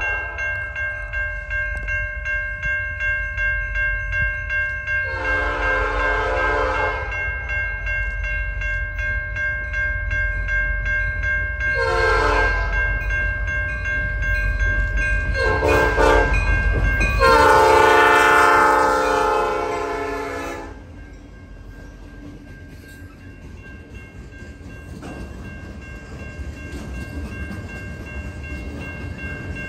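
Canadian National freight locomotive's air horn sounding four blasts as it approaches, the last the longest and loudest, over a bell ringing rapidly and the low rumble of the train. After the horn stops, the bell fades and the freight cars roll past with a quieter steady rumble.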